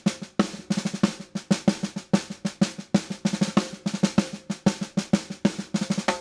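Music with a fast drum pattern: rapid snare and drum hits, about six or seven a second, running without a break.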